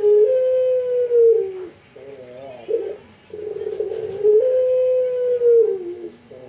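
Puter pelung dove cooing: its long, drawn-out coo, held steady and dropping at the end, comes twice, each time after a short run of rolling, wavering notes.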